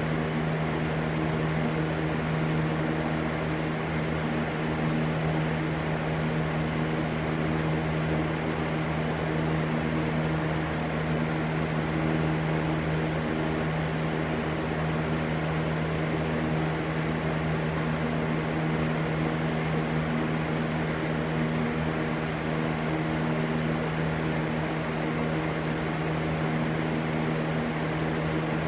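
Steady white noise, a constant rushing with an unchanging low hum underneath, like a running fan or motor.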